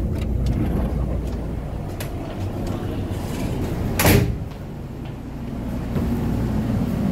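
Cabin noise of an ex-JNR express electric train: a steady low running rumble with scattered clicks. A sharp, loud crash about four seconds in, after which the rumble is quieter.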